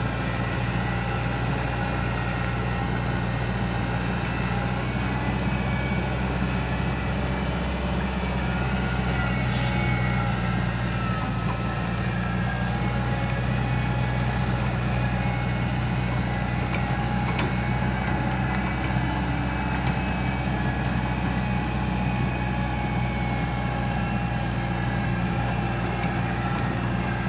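Excavator's diesel engine running at a steady speed, a constant low drone that does not change.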